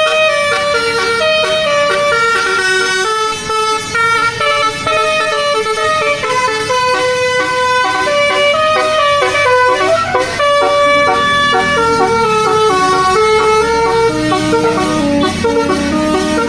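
A bus's telolet basuri multi-tone musical horn playing a tune of held notes that step from pitch to pitch. The bus engine's low rumble grows louder over the last few seconds.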